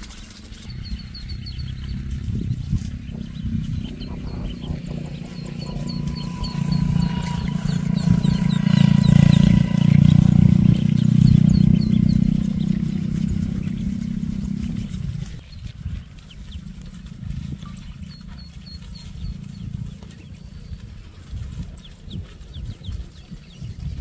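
Ducklings peeping in short high chirps over a low rumble. The rumble swells to its loudest in the middle and falls away suddenly about fifteen seconds in.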